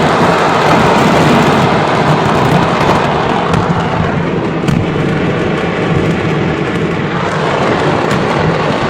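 Stockpiled fireworks going off en masse as the factory burns: a loud, continuous dense crackle and rumble, with a few sharper cracks standing out about midway.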